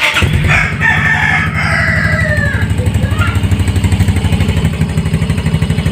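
Yamaha Mio i 125S scooter's single-cylinder engine starting and settling into a steady, even idle through an Akrapovič Hexatip muffler with its dB-killer silencer fitted. A rooster crows over it during the first two seconds or so.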